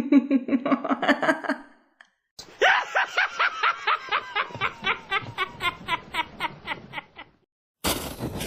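Horror sound-effect laughter: a low, rapidly pulsing evil laugh dies away, then after a short gap comes a higher-pitched cackle of evenly spaced ha-ha pulses. Near the end a sudden steady noisy hiss cuts in.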